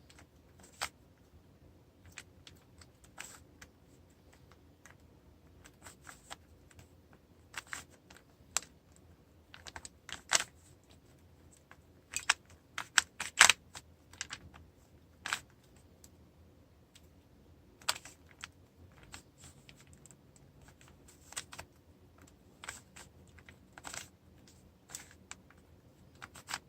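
Plastic Rubik's cube being turned by hand: irregular clicks and clacks of its layers turning and snapping into line, in uneven flurries with short pauses between.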